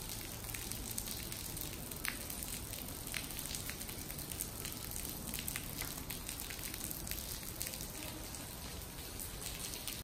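Steady rain falling on wet stone paving, with a scatter of individual drops splashing.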